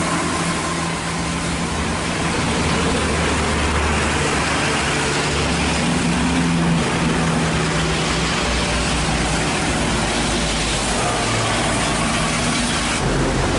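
Large intercity bus engine running steadily as the bus drives away on a flooded highway, under a loud hiss of heavy rain and tyre spray off the wet road.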